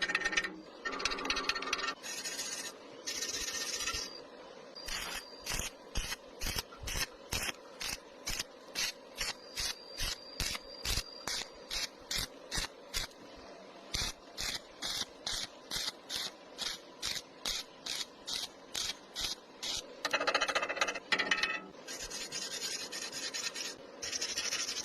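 A welding arc struck in short, regular bursts, about two a second, stitch-welding thin sheet metal. Near the start and again near the end there are a few longer stretches of continuous arc.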